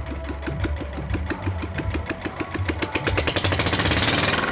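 Small single-cylinder diesel generator engine running on diesel made from plastic bottles, firing in an even beat of about eight strokes a second. About three seconds in it speeds up and gets louder.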